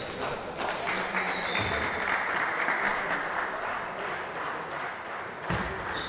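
Spectators clapping for a few seconds, then thinning out, with one dull thump near the end.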